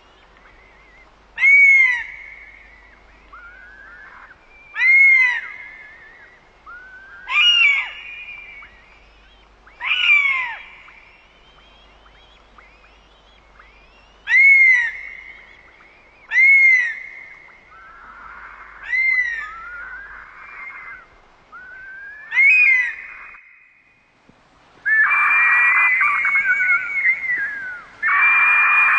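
Bird of prey calling: a series of about eight shrill, whistled screams, each rising then falling in pitch, spaced two to four seconds apart. Near the end the calls run together into a continuous stretch of overlapping screaming.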